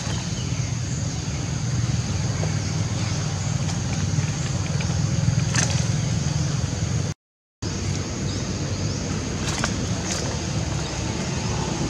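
Steady low rumble of outdoor background noise with a faint steady high ringing above it and a few faint clicks. It drops out for about half a second a little after seven seconds in.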